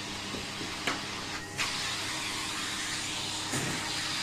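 Henry vacuum cleaner running, a steady motor hum and hiss of suction as it picks up rubbish, with two short knocks, about a second in and again near the end.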